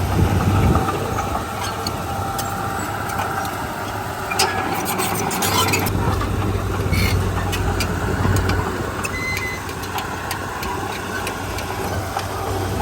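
Heavy diesel machinery running steadily, with a brief run of sharp clicks about halfway through.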